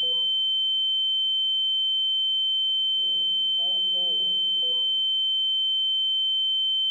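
A loud, steady, high-pitched electronic tone that holds one pitch and level throughout, with a fainter lower tone beneath it. Faint, muffled voices come and go under it about halfway through.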